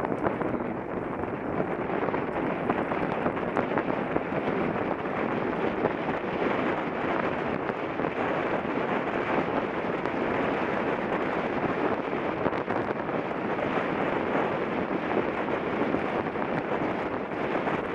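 Steady wind rush on the microphone of a mountain bike in motion, with a constant fine rattle of tyres and bike over a rough trail.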